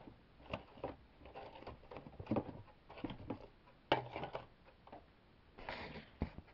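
Scattered light clicks, taps and short rustles of hands handling a small die-cast model airliner as it is set down on a paper mat, with a sharper click about four seconds in and again near the end.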